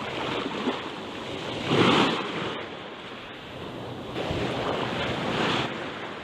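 Sea waves washing in on the shore, one surge peaking about two seconds in and a longer one near the end, with wind buffeting the microphone.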